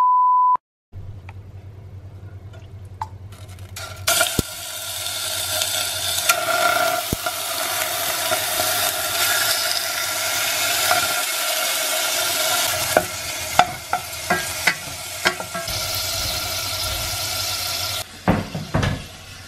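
A brief steady test-tone beep, then pieces of chicken fat sizzling in a stainless steel pot as they render down to oil. The sizzle builds a few seconds in, a few sharp clicks come through it, and it stops shortly before the end.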